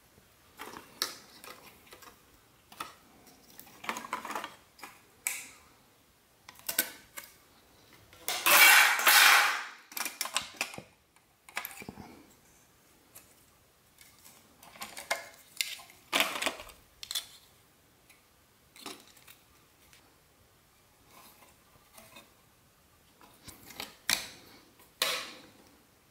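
Irregular clicks and clatter of flat-screen TV parts being handled and set down during disassembly, with one louder, longer noise of about two seconds roughly a third of the way in.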